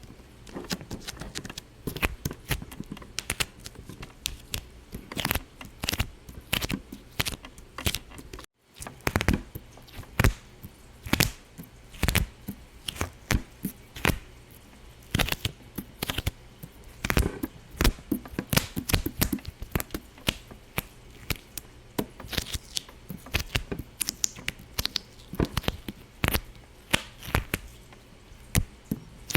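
Irregular sharp pops and clicks, several a second, with a brief gap about eight and a half seconds in.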